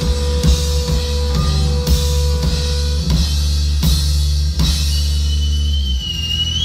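Rock band playing the end of a song live: a held bass and guitar chord under scattered drum and cymbal crashes, with the low chord cutting off about six seconds in. A high held tone comes in near the end.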